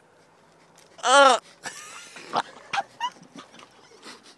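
A man's short, strained vocal cry about a second in, rising and then falling in pitch, from a man with a mouthful of squeezed-in sauces. Fainter scattered small sounds follow.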